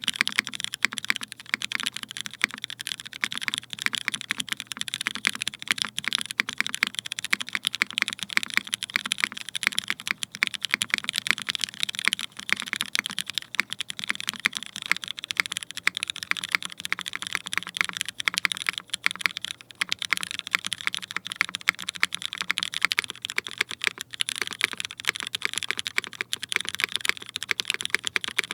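Continuous fast typing on a Geim65 65% mechanical keyboard with GMK keycaps and lubed linear switches: a dense, uneven run of crisp keystroke clacks.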